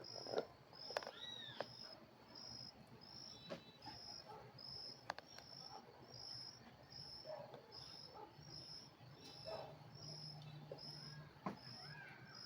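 Faint, evenly repeated high chirping like a cricket, about one and a half chirps a second, with a few scattered squeaks and light clicks.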